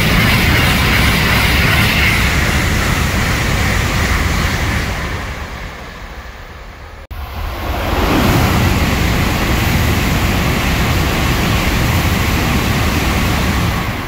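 N700-series Shinkansen bullet trains passing through a station at speed: a loud rush of air and wheel-on-rail noise from a train close by fades away over about six seconds. After a sudden break, a second pass rises about a second later, holds steady and begins to fade near the end.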